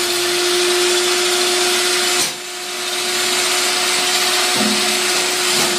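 Electric vegetable-slicing machine running: a steady motor hum over a whirring rush from the spinning cutter disc, dipping briefly about two seconds in.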